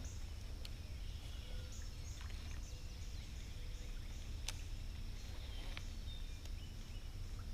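Outdoor river ambience: a steady low rumble, with a high chirp repeated about twice a second that stops about halfway through, and a few light clicks.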